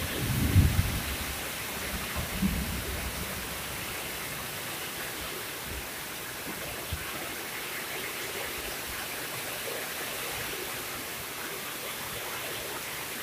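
Heavy rain falling on the pond water, a steady hiss throughout, with a low thump about half a second in and another about two and a half seconds in.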